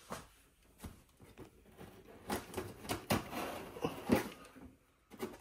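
Scissors blade drawn along the taped seam of a cardboard box, slitting the packing tape: irregular scratchy scrapes and taps, busiest in the second half.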